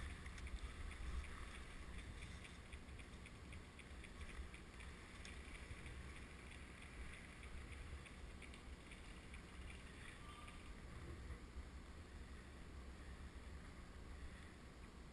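Faint low wind rumble on the microphone with light rustling and small ticks.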